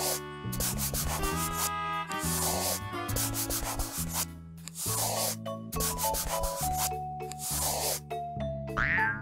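Scratchy rubbing strokes of a marker drawing on paper, coming in short repeated bursts over light children's instrumental music. A short rising chime comes near the end.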